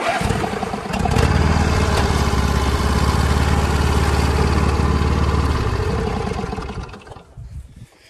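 Murray riding lawn tractor engine cranked on the starter and catching about a second in, then running steadily with nobody on the seat, its seat safety switch disconnected. It winds down and stops near the end.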